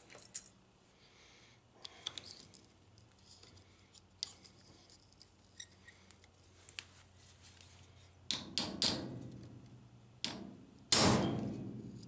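Hammer striking a punch to drive a stuck pin out of a vending-machine gearbox cam: scattered light taps, then a group of blows about eight seconds in and the hardest, ringing blow near the end. The pin won't move; the blows are only mushrooming its end.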